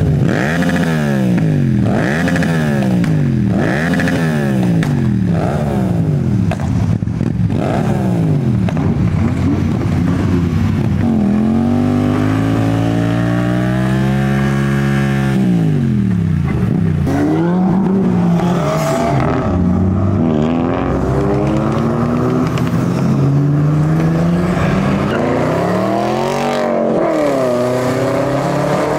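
Naked sport motorcycle engine revved hard over and over while stationary, rising and falling about once a second. About eleven seconds in it is held at high revs for around four seconds, spinning the rear tyre in a burnout, then drops back, followed by more revving.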